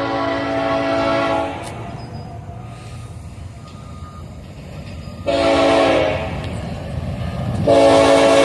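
Nathan Airchime K5HLA five-chime locomotive air horn sounding a chord: a long blast ends about a second and a half in, a short blast follows a few seconds later, then another long blast begins near the end, in the long-short-long pattern of the close of a grade-crossing signal. A steady low rumble of the moving train runs beneath.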